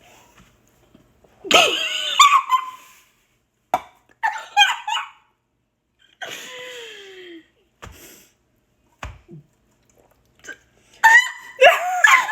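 Girls' short, high-pitched vocal outbursts, giggles and squeals, in several separate bursts, with a falling vocal sound about six seconds in and the loudest burst near the end.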